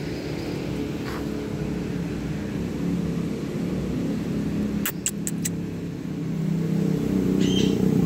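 A motor vehicle engine runs nearby with a steady low hum that grows louder near the end. A few sharp clicks come about five seconds in, and a short bird call comes just before the end.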